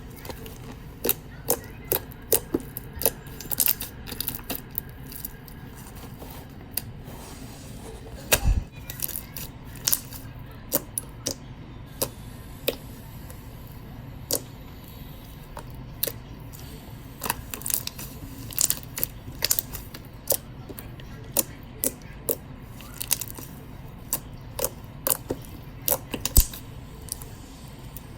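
Homemade white glue slime being squished and stretched by hand, giving off irregular sharp clicks and pops, with a single louder thump about eight seconds in.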